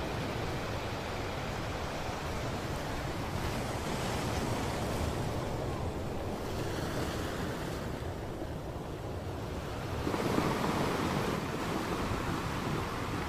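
Ocean surf with wind, a steady wash of noise that swells louder about ten seconds in.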